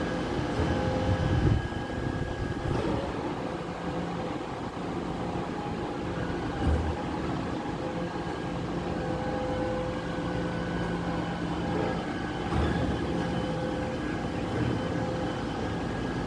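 Garbage truck at work: a steady, constant machine hum with a few knocks and clanks.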